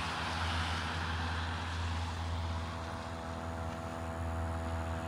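A motor running steadily with a low, even hum, with light wind on the microphone.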